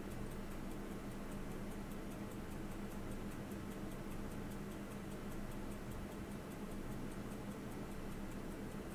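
A mechanical watch ticking steadily, about five ticks a second, over a faint, steady low hum.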